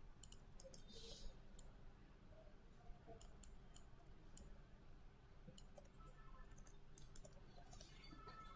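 Near silence with faint, irregular computer mouse clicks over a low steady hum.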